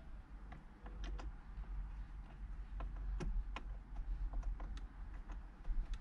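Irregular small clicks and taps of hand work on the side of a steering wheel, at the small round trim caps covering its security screws, over a low steady rumble.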